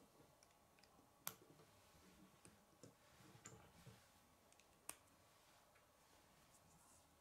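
Plastic K'nex pieces clicking as they are handled and snapped together, quietly: two sharp clicks, one about a second in and another nearly four seconds later, with fainter small clicks and rattling between.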